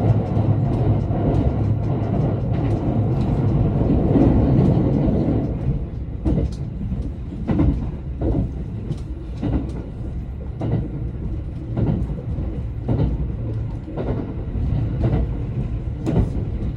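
Kuroshio limited express train running, heard from inside the carriage: a steady low rumble, louder for the first five seconds or so, then wheels clacking over rail joints about once a second.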